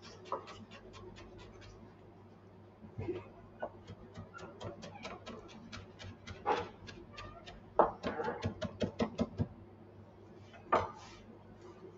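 Kitchen food preparation at a worktop: two runs of fast, even tapping, about five a second, with a few louder knocks and clatters, over a low steady hum.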